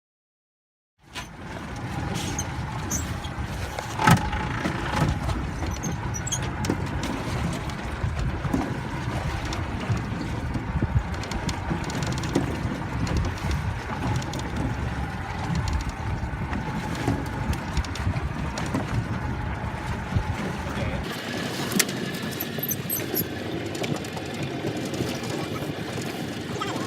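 Fishing boat's engine running, a steady rumble with a faint steady tone and a few clicks. About twenty seconds in, the low rumble drops away.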